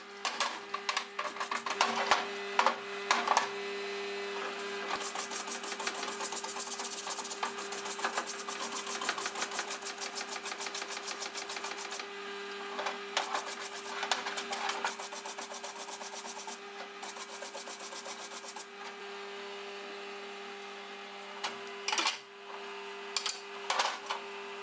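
A power tool's motor hums steadily while rapid rasping strokes against metal come and go as built-up grime is scrubbed off cast-iron parts, densest and harshest from about five to twelve seconds in and again briefly later.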